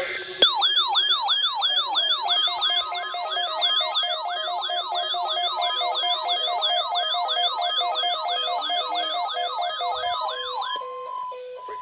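Weather radio receiver's siren alarm wailing in quick falling sweeps, about three a second, over the steady 1050 Hz NOAA Weather Radio warning alarm tone. The receiver has been set off by the weekly test signal. The siren starts about half a second in and stops near the end, leaving the steady tone briefly.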